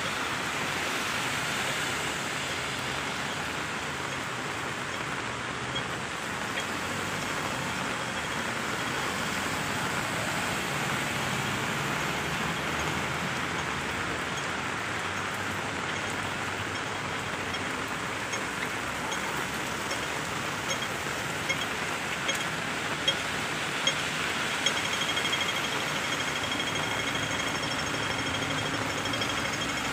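Heavy rain falling on a city street, with traffic passing. From the middle on, a pedestrian crossing signal ticks steadily, then ticks much faster near the end as it turns to green.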